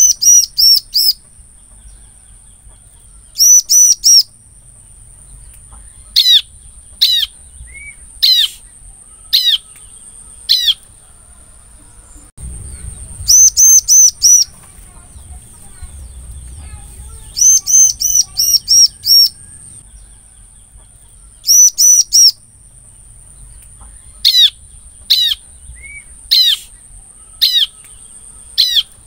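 Bar-winged prinia (ciblek) calling: bursts of three to five sharp, fast notes, repeated every two to three seconds. A steady high-pitched whine runs beneath.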